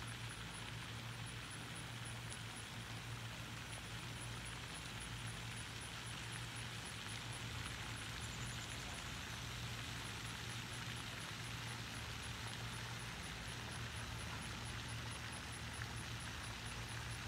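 Steady outdoor background: an even hiss with a low hum beneath it, and a faint, very high ticking repeating about three or four times a second.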